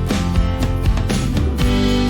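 Background music: upbeat strummed guitar with a steady beat.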